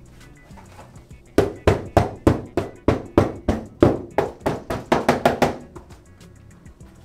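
A hand slapping the plastic door trim panel of a 1990–94 Chevy Silverado about fifteen times, roughly three a second, knocking out the plastic shavings and dust left from sanding.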